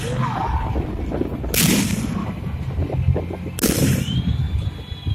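Fireworks salute shells bursting, two sharp bangs about two seconds apart over a low rumble. A thin, steady high whistle starts near the end.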